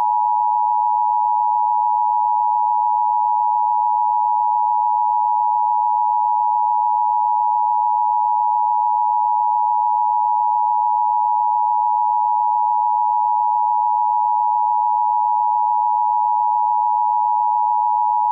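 Emergency Alert System attention signal: a steady, loud two-tone electronic beep, 853 Hz and 960 Hz sounded together, held without a break.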